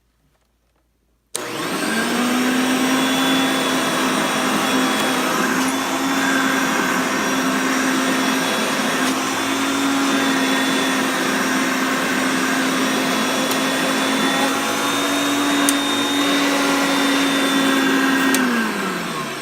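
Hoover Concept Two upright vacuum cleaner switched on about a second in, its motor running steadily with a loud hum and whine. Near the end it is switched off and the motor spins down, the pitch falling.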